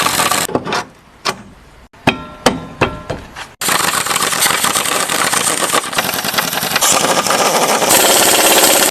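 Impact wrench driving in the bolts of a newly fitted lower control arm ball joint, in a long run from about a third of the way in until the end. A short burst comes at the start, and a few sharp clanks of tools fall between.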